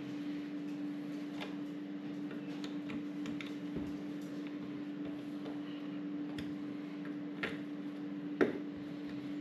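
Irregular small clicks and taps of a screwdriver and fingers working at a plastic flush-mounted electrical wall box, with a sharper knock near the end. A steady hum runs underneath.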